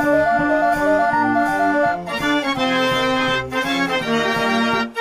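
Instrumental background music: a melody of short held notes over bass notes.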